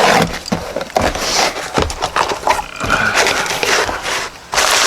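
Knife packaging being handled and opened: a run of clicks, taps and scrapes, with a louder burst of rustling near the end.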